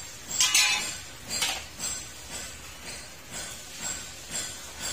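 A series of short rustling, scraping handling noises, about eight brief ones spaced roughly half a second to a second apart.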